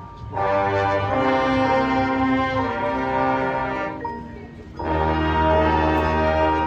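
Marching band brass playing long held chords. The sound thins briefly about four seconds in, then a loud full chord enters with heavy low brass.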